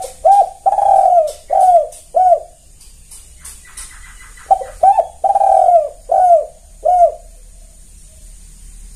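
Spotted dove (tekukur) singing its loud, clear cooing song: two phrases, each a short note, a long drawn-out coo and two or three shorter coos, the second phrase starting about four and a half seconds in.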